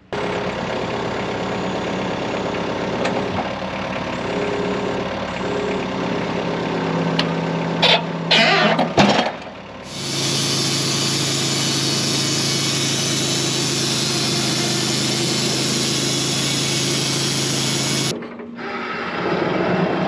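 Wood-Mizer portable bandsaw sawmill running. Its engine is heard first, with a few sharp clanks about eight to nine seconds in. From about ten seconds the band blade cuts through a pine log, a loud steady hiss over the engine. It breaks off briefly near the end and resumes.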